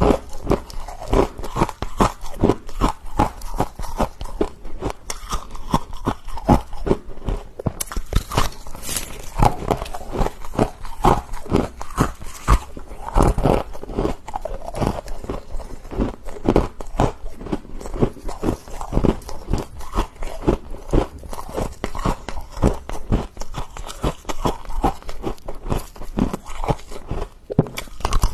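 Freezer frost being bitten and chewed close to the microphone: a rapid, continuous series of crunches.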